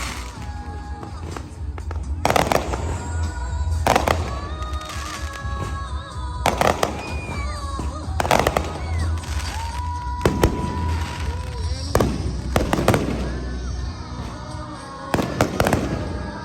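Fireworks bursting overhead: a sharp bang every second or two, some in quick pairs, over a continuous deep low rumble. Music plays alongside.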